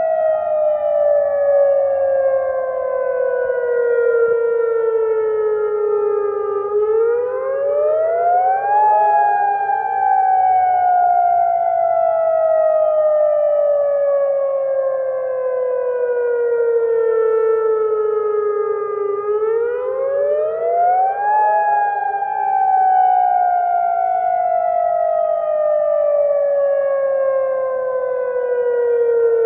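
Emergency alert siren wailing. The pitch climbs quickly over about two seconds, then slides slowly down for about ten seconds, and this happens twice.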